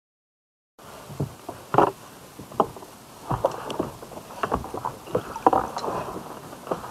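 Kayak being paddled, starting about a second in: irregular knocks and splashes as the paddle works the water and taps the hull.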